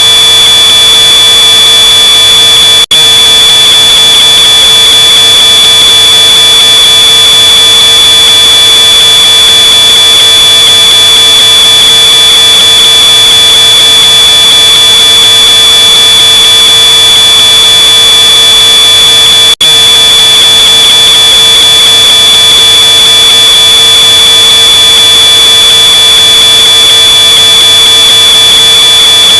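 Smoke alarm sounding a continuous high-pitched tone, amplified to the point of harsh, noisy distortion. It cuts out for an instant twice, about three seconds in and again near twenty seconds.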